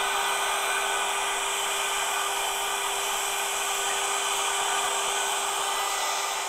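DJI Air 2S quadcopter hovering close by, its propellers making a steady hum of several tones; it has not yet caught its GPS satellites.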